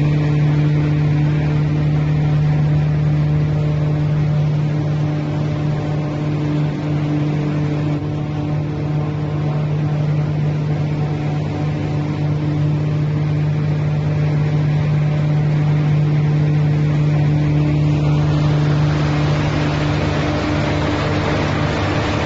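Rotary straw cutting machine running steadily, a constant low mechanical hum under a rushing noise.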